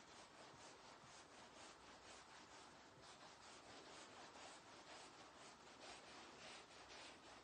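Faint, rhythmic swishing of a wire grooming brush drawn through a Ragdoll cat's long coat, about three strokes a second.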